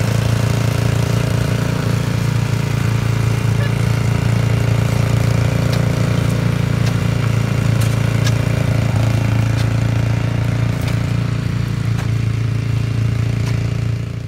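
Portable hot-air heater running steadily, pushing air through a flexible duct hose: a loud, unbroken low drone with a few faint clicks.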